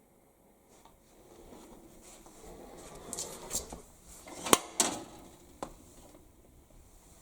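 Light clattering and handling noises, with two sharp clicks a little past the middle and a few fainter clicks after.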